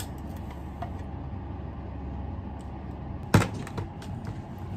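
A steady low hum, then about three and a half seconds in a sharp knock followed by a few lighter clicks as sliced sweet potatoes are laid into a plastic microwave steamer container.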